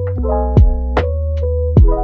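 Background music: a mellow lo-fi beat of electric-piano chords over a bass line, with a steady drum pattern of kick and snare hits.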